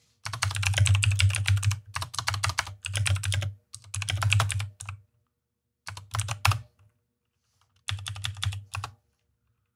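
Computer keyboard typing in about six quick bursts of keystrokes, separated by short pauses.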